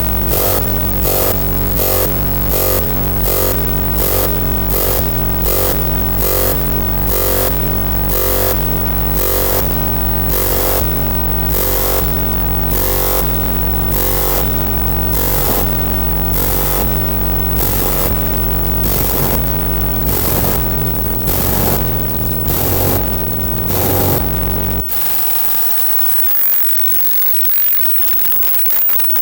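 Electronic music played on hardware synthesizers and a groovebox: a steady beat of about two hits a second over deep bass and synth notes. About 25 seconds in the beat and bass cut off suddenly, leaving a thinner, noisy crackling texture.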